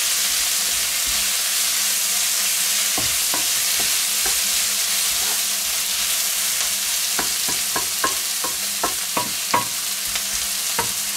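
Sliced onions frying in a wok, stirred with a wooden spatula: a steady sizzling hiss with scattered knocks and scrapes of the spatula against the pan, coming more often in the second half.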